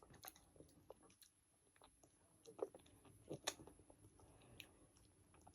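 Near silence, broken by a few faint, short wet mouth clicks from someone eating an ice pop.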